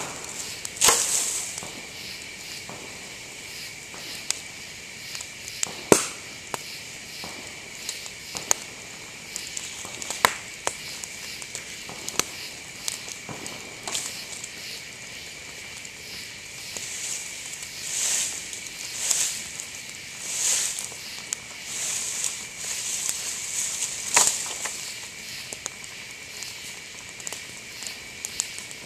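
Bamboo burning in a bonfire, crackling with scattered sharp pops as heated bamboo stalks burst, the loudest about 1, 6, 10 and 24 seconds in. Several hissing rushes come between about 17 and 23 seconds in.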